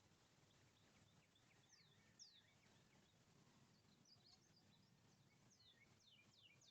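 Faint birdsong: short, high notes sliding downward, a couple about two seconds in and a quick run of them near the end, over a low steady background hum.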